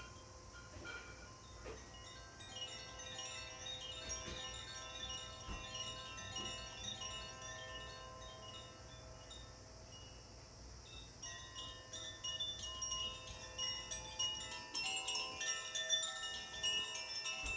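Tuned chimes played for a sound bath: many ringing, overlapping tones struck again and again. The playing grows denser and louder about two-thirds of the way through.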